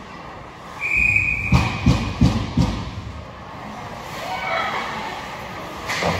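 Sounds of an ice hockey game in a rink: a short, steady high whistle about a second in, followed by a quick run of four or five low thuds, a voice calling out near the middle, and a sharp knock near the end.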